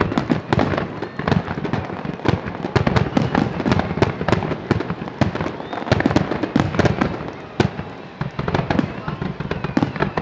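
Fireworks finale: a dense, rapid barrage of bangs and crackling bursts, shells going off one on top of another without a break.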